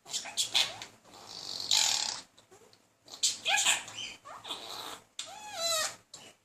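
Budgerigar chatter: a quick run of warbles, clicks and chirps, with a harsh scratchy note about two seconds in and whistled notes near the end. It is the babble of a male budgie courting a hen.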